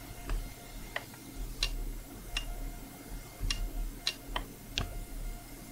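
Front-panel push-buttons of a Tektronix 222 digital storage oscilloscope being pressed to switch off channel 1: about eight short, sharp clicks at irregular intervals.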